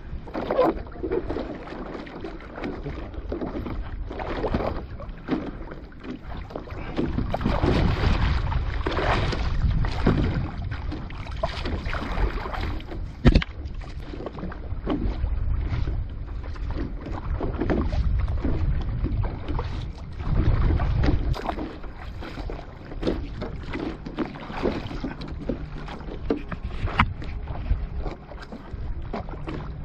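Water splashing and rushing against a board on the sea, in uneven swells, with wind buffeting the microphone. One sharp knock comes about a third of the way in.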